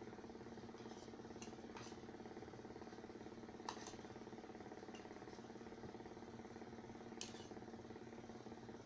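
Faint, scattered clinks of a spoon or utensil against a plate or dish while eating, about five over the stretch, the loudest a little under four seconds in. A steady hum runs underneath.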